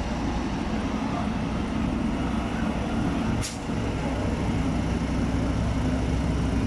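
Heavy six-wheeled military rocket-launcher truck driving slowly past, its diesel engine running steadily with the sound mostly low-pitched. A brief sharp hiss comes about halfway through.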